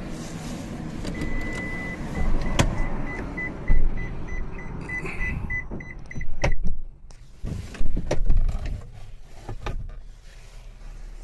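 Plastic clicks and clunks of a Suzuki Spacia's fold-down seatback table being swung open and latched, among handling knocks. A high electronic tone starts about a second in and breaks into rapid beeping, which stops a little over halfway through.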